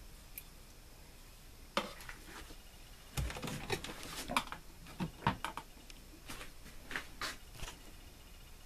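Scattered clicks and light knocks of plastic being handled on a small twin-tub washing machine: detergent going in and the control knobs being set. There is a single click about two seconds in, then a busier run of knocks from about three to eight seconds.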